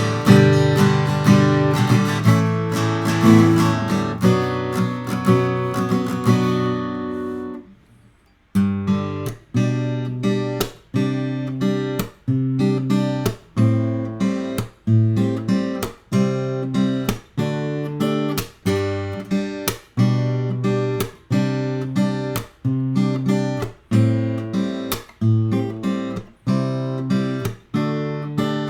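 Sigma GME+ electro-acoustic guitar being strummed. Chords ring on for about seven seconds and stop briefly. Then comes a steady rhythm of short, choked chord strums, about three every two seconds.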